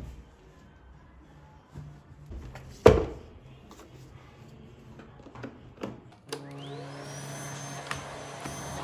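Household knocks and clicks, one sharp knock louder than the rest about three seconds in. Then a vacuum cleaner is switched on about six seconds in: its motor whine rises quickly and settles into a steady high tone over a hum.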